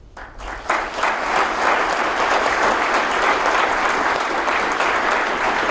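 Audience applauding, the clapping starting about half a second in and swelling quickly to a steady ovation.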